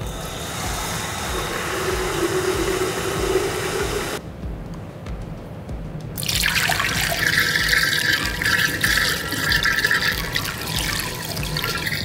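Tap water running from a sink faucet into a metal measuring pitcher, its filling tone rising slightly. After a short break, the water is poured from the pitcher through a plastic funnel into a glass carboy partly full of water, a louder, steady splashing rush.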